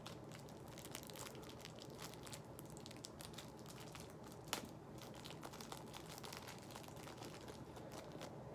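Faint crinkling and rustling of hands handling a camera strap and its packaging, with many small clicks and one sharper click about four and a half seconds in.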